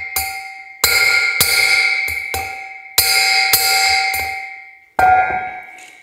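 Hammer blows on a drift knocking the old, worn bearing out of a fluid flywheel's hub: about eight sharp strikes at uneven intervals, each followed by a long metallic ring from the flywheel.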